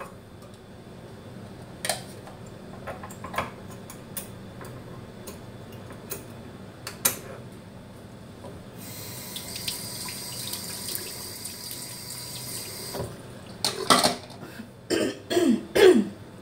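Scattered light clicks and taps of a small glass jar and applicator brush being handled on a counter. In the middle a steady hiss runs for about four seconds, and a cluster of louder short knocks and scrapes comes near the end.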